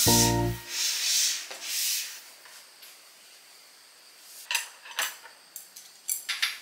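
A jingly music cue ends in the first second. A laptop is slid across a tabletop in two soft rubbing sweeps, then scattered clicks and taps on its keyboard follow in the last couple of seconds.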